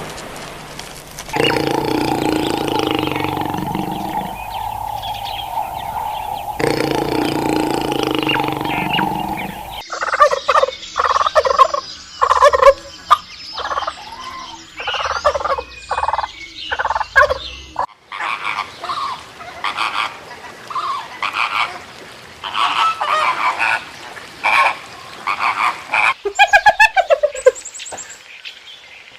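Poultry calling in several recordings cut one after another: a long held call, then rapid repeated calls, then a run of shorter calls with a few falling notes near the end.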